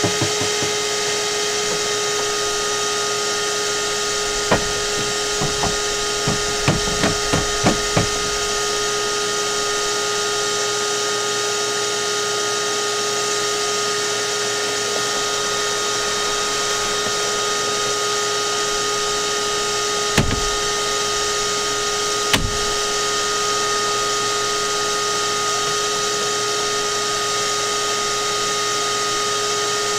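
A machine, most likely a power tool or shop motor, running steadily with a constant whine. A quick run of knocks and clatters comes about five to eight seconds in, and two single knocks follow about twenty seconds in.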